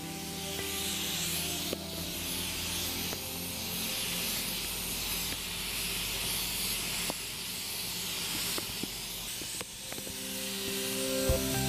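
Compressed-air paint spray gun hissing steadily while spraying, with a few brief breaks in the hiss. Faint background music runs underneath and grows louder near the end.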